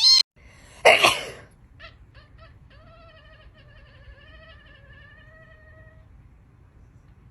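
Cat vocalising: two short, loud, harsh outbursts near the start, then a few faint short chirps and a long, wavering meow lasting about three seconds.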